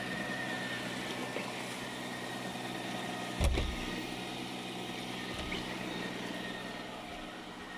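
Robot vacuum cleaner running with a steady hum, with a single low thump about three and a half seconds in.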